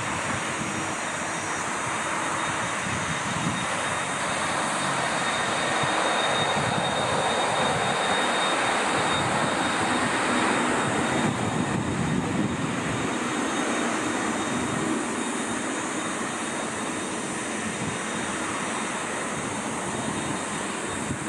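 Jet engines of an Airbus A330-202 running at low taxi thrust: a steady rushing hiss with a faint high whine, growing slightly louder about a third of the way in as the airliner swings round.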